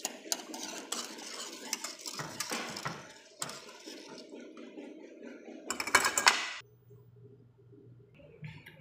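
Wire whisk stirring thick béchamel sauce in a pot, its wires clicking and scraping against the pot, ending in a louder burst of clatter about six seconds in.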